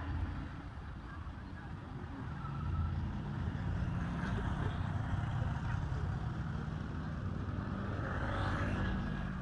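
Low, steady engine rumble that swells about two and a half seconds in, with a brief higher-pitched sound near the end.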